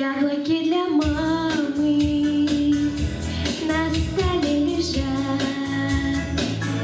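A girl singing a solo melody into a microphone, holding some notes and gliding between others, over musical accompaniment with a steady beat.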